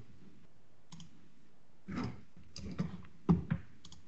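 Computer mouse and keyboard clicks: a scattered run of short, sharp clicks, the loudest a little over three seconds in.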